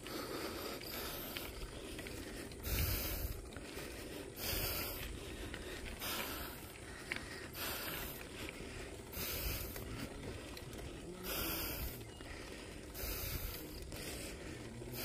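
A cyclist breathing hard while pedalling uphill, a loud exhale about every one and a half to two seconds.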